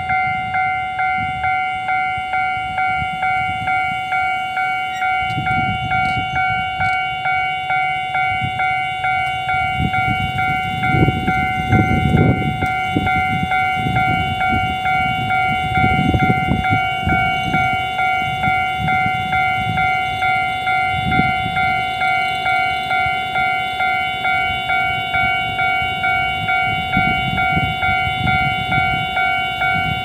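Taiwanese level-crossing warning bell ringing with an even, repeated electronic ding, a little more than once a second, as the crossing signal warns of an approaching train. Low rumbles swell and fade underneath, strongest about eleven seconds in.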